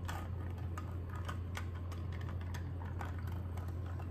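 Ice cubes and a metal bar spoon clinking lightly against a tall glass as a gin and tonic is stirred slowly: scattered, irregular small clicks over a steady low hum.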